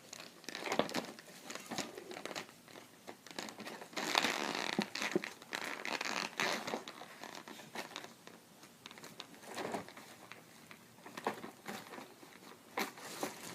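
Plastic toy packaging crinkling, crackling and tearing in irregular bursts as it is pulled and ripped open by hand, loudest about four to seven seconds in.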